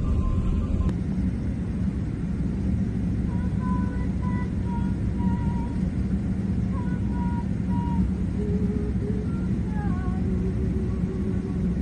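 Steady low rumble of an airliner's engines and cabin, heard from inside the cabin as the plane taxis on the ground.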